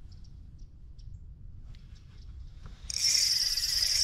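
A spinning fishing reel whirring loudly and steadily, starting suddenly about three seconds in, after a low rumble with a few faint ticks.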